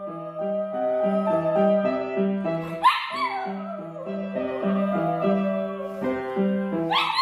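Small dog howling along to an upright piano being played: two long howls, one about three seconds in and another near the end, each rising briefly then sliding down in pitch over the steady piano notes.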